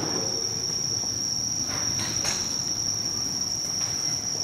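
Night insects chirring in one steady, unbroken high-pitched trill, with a couple of faint knocks about halfway through.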